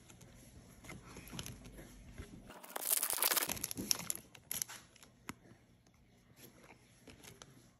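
Glossy chrome trading cards handled and flipped through by hand: scattered light clicks and slides of card on card, with a louder crinkling rustle lasting about a second, around three seconds in.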